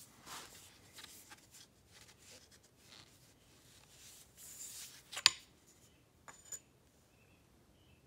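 Faint scraping and rubbing as an aluminium shaft and a hedge trimmer attachment are handled and twisted to line up, with one sharp click about five seconds in and two lighter clicks shortly after.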